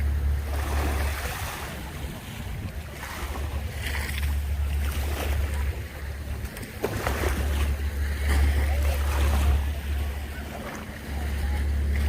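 Ocean waves washing onto the beach, the surf swelling and fading every few seconds, with gusts of wind rumbling on the microphone.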